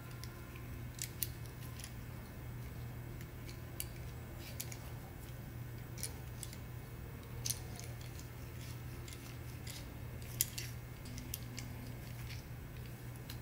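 Ulanzi metal hot shoe mounts clicking and clacking as they are handled and fitted together: scattered light clicks at irregular spacing, the sharpest about ten seconds in, over a steady low hum.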